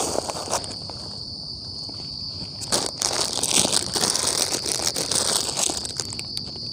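Night insects keep up a steady high trill throughout. Over it, a plastic snack wrapper crinkles and rustles in the hands in short bursts, in the middle and again near the end.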